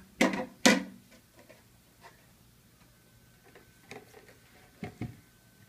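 A plate knocked twice against the rim of a glass ring mould as it is laid over it to turn out a set pudding. A few faint clicks follow, and near the end there is a dull thump as the flipped mould and plate are set down.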